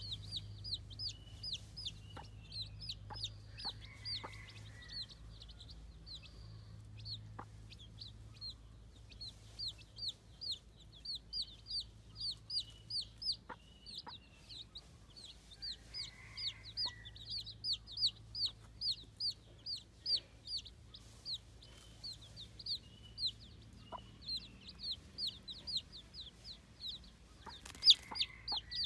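Baby chicks peeping continuously: a rapid run of short, high, falling peeps, several a second. Occasional sharp clicks sound among them, one loud click comes near the end, and a low steady hum runs beneath.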